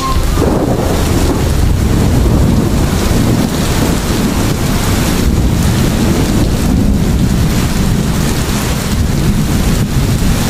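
Loud wind buffeting the microphone in a rainstorm, a steady rumbling rush that starts just as the music cuts off.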